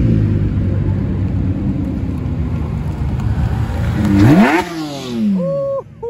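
Supercar engines driving past at close range: one car's engine fades as it pulls away, then a Porsche 911 GT3 RS's naturally aspirated flat-six revs hard as it passes, its pitch rising sharply to the loudest point about four seconds in, then dropping away as it goes by.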